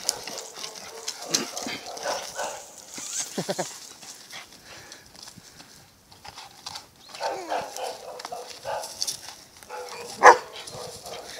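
An American Staffordshire Terrier growling as it chases and bites a bicycle tire swung on a rope, in irregular bursts, with one loud sharp sound about ten seconds in.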